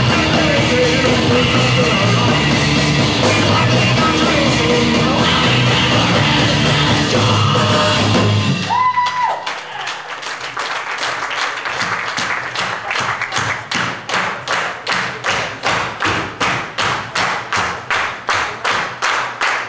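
Rock band playing live with singing, loud and full. About eight seconds in the band drops out, a short held tone sounds, and then a steady beat of sharp hits, about three a second, carries on alone.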